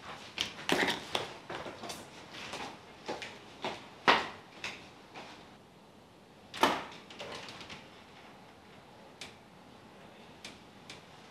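Plastic cosmetic jars handled on a desktop: lids and jars clicking and knocking in an uneven string, with two louder knocks about four and six and a half seconds in, then only faint ticks.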